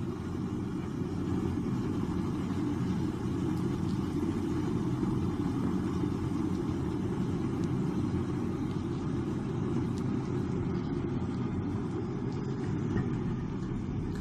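Cylindrical forge furnace running with a steady low roar while a steel bar heats to forging temperature in its mouth.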